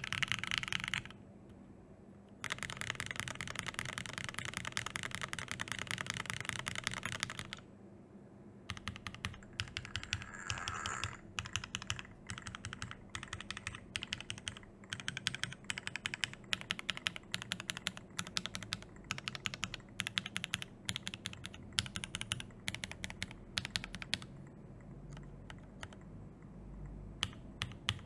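Typing on an Obliterated75 SE mechanical keyboard with lubed Alpaca linear switches, an FR4 plate and GMK Hyperfuse keycaps. Two fast, dense runs of keystrokes with a short pause between them, then slower, more separate keystrokes that stop near the end.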